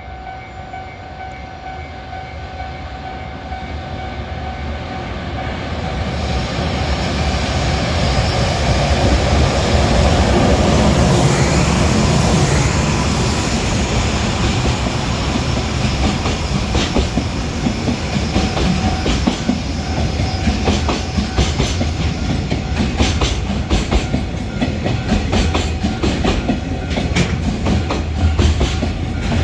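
EH500 electric locomotive hauling a container freight train past: it grows louder over the first ten seconds or so, then the wagons' wheels clack steadily over the rail joints as the train runs by. A level-crossing warning bell rings at first.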